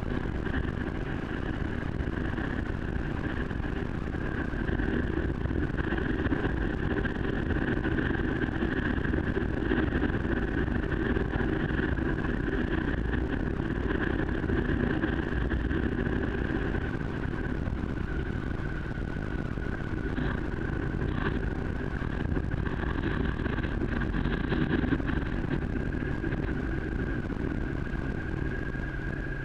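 Steady road and wind rush while riding down a wet dirt road, with a steady high whine running through it.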